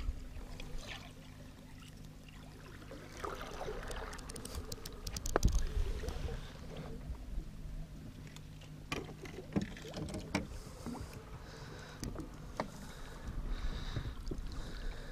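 Water splashing and lapping at the side of a fishing boat as a bucktail lure is swept through a figure eight beside the hull, over a steady low hum, with scattered clicks and one sharp knock about five seconds in.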